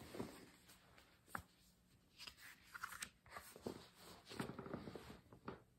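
Faint rustling and soft taps of a hardcover picture book being opened and its paper pages handled.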